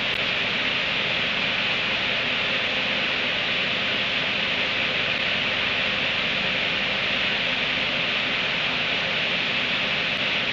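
A steady, even hiss, strongest in the high-middle range, with no distinct clicks or knocks standing out.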